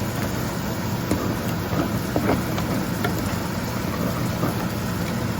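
Steady low mechanical hum, like a running motor or fan, with a few faint ticks.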